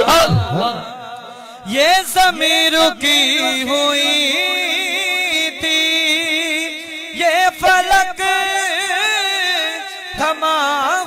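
A solo voice sings an Urdu naat, a devotional song in praise of the Prophet, in long drawn-out notes that waver and slide in pitch. It dips quieter in the first second or two before the singing picks up again.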